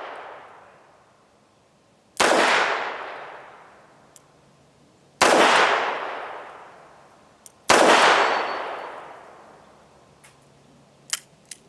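Three shots from a Smith & Wesson Model 36 .38 Special snub-nose revolver, spaced about two and a half to three seconds apart, each with an echo that dies away over about two seconds. A few light clicks follow near the end.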